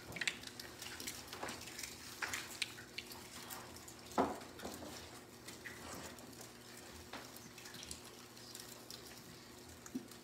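Scattered small clicks and plastic crinkles from a congregation handling and drinking from small plastic communion cups, with a louder short sound about four seconds in, over a faint steady hum.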